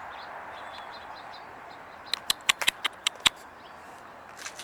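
Faint chirps of small birds over a steady outdoor background hiss, then a quick run of about seven sharp clicks a little after two seconds in.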